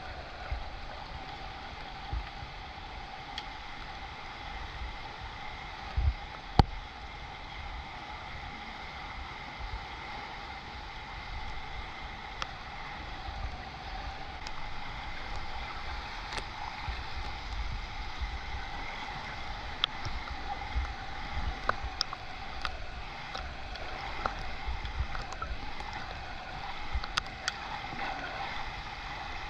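Swimming-pool water ambience: a steady rushing hiss with a faint hum, broken by scattered small clicks and low thumps, a couple of the thumps louder about six seconds in.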